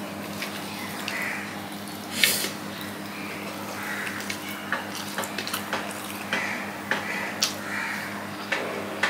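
Fingers mixing and squeezing rice on a steel plate, with sharp wet clicks and mouth sounds of chewing, one louder smack about two seconds in. A steady low hum runs underneath.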